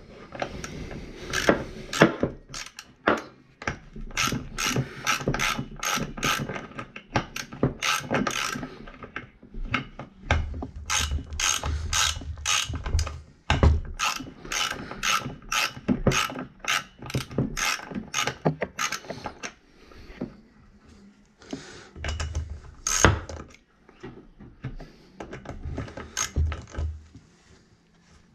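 Socket ratchet clicking in quick runs as it turns the ignition coil bolts on a Poulan 3400 chainsaw, with brief pauses between runs and sparser clicks near the end.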